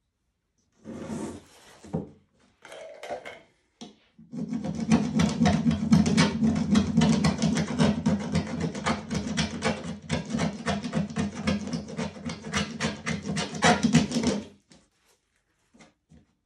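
A hand rubbing briskly back and forth over a painted stretched canvas, making a dense, scratchy rubbing sound. Two short bouts come first, then about ten seconds of rapid strokes that stop abruptly near the end.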